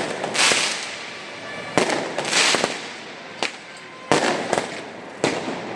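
Fireworks display: about six sharp bangs come unevenly, roughly a second apart. Each is followed by a brief hissing crackle.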